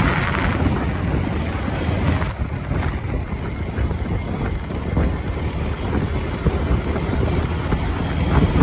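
Wind buffeting the microphone on a moving motorbike: a steady, gusting low rumble with riding noise underneath.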